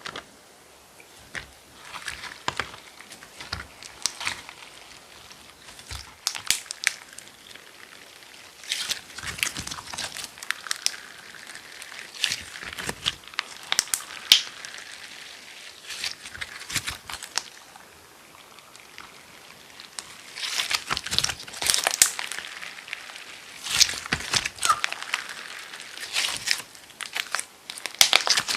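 Glitter slime being handled by hand, squished and stretched, giving irregular crackling clicks in clusters with short quieter pauses.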